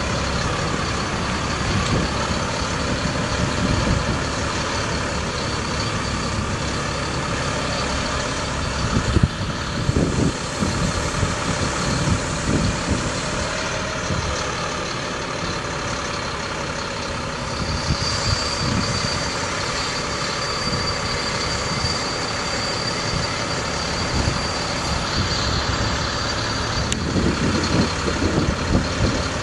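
Ford F750 bucket truck engine running steadily, driving the Versalift VN50I boom hydraulics while the boom is raised and swung. A thin, steady high whine holds for several seconds past the middle.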